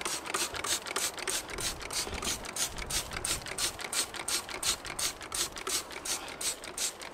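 Hand trigger spray bottle of grease-cutting degreaser pumped rapidly, about five short hissing sprays a second in an even rhythm, stopping near the end.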